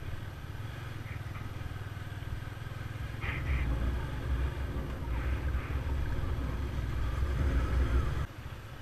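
Motorcycle on the move: engine running under a heavy low rumble of wind on the microphone. It gets louder about three seconds in and drops off suddenly near the end.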